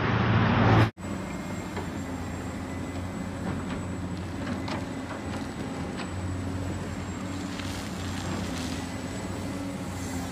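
A Caterpillar 365C hydraulic excavator's diesel engine runs steadily as it digs, with scattered short knocks and scrapes from the bucket working the soil. It comes in after a louder sound cuts off abruptly about a second in.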